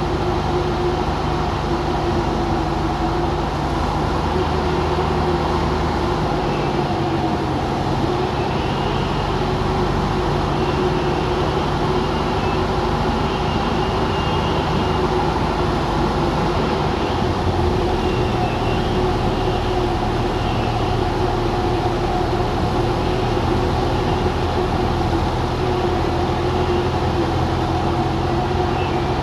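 Cockpit noise of a 1948 Cessna 170's six-cylinder Continental engine and propeller in cruise on approach, a steady drone heard inside the cabin. The drone drops slightly in pitch a little past halfway.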